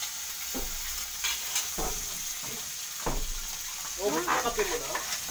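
Food sizzling steadily in a small frying pan over a high gas flame, with a few short knocks along the way.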